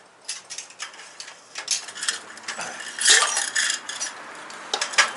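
Metal camping-stove gear being handled: a series of light metallic clinks and knocks, with a busier stretch of clattering about three seconds in and one sharp knock near the end.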